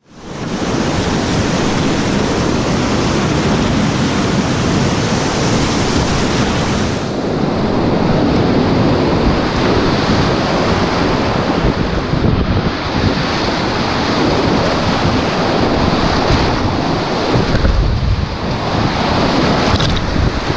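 Rushing whitewater of a mountain river, a loud steady roar of churning water, with wind buffeting the microphone. The highest hiss drops back about a third of the way in.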